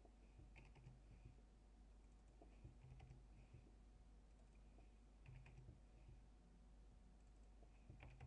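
Faint, scattered clicks of a computer keyboard and mouse, a few keystrokes at a time, over a low steady hum.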